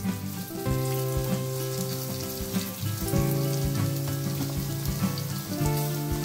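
Spice-coated soya chunks shallow-frying in sunflower oil in a frying pan: a steady sizzle, with small clicks from a spatula stirring through them. Steady held tones sound underneath and change pitch every two or three seconds.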